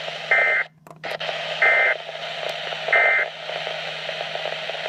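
Weather radio playing three short bursts of SAME digital data tones about 1.3 seconds apart, over steady radio hiss and a low hum; bursts this short fit the end-of-message code. The signal cuts out for a moment after the first burst.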